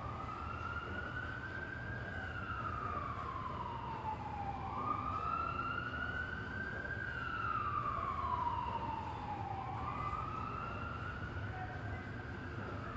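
Emergency vehicle siren in a slow wail, its pitch climbing and then sliding down again about every four to five seconds, three times over. A steady low hum of city traffic runs underneath.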